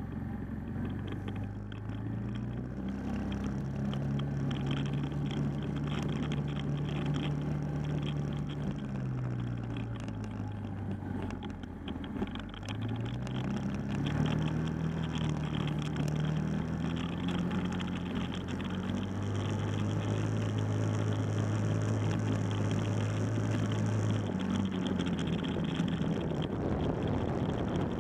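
Four-wheeler (ATV) engine running under way, its pitch rising as it speeds up, holding steady, falling away about ten seconds in, then climbing and holding again before easing off near the end. A steady rushing noise runs underneath.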